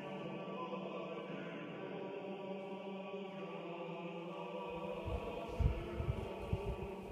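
Choral chant with long sustained notes, laid in as background music. From about five seconds in, an irregular low rumble of gusts on the microphone comes in under it, and its peaks are the loudest moments.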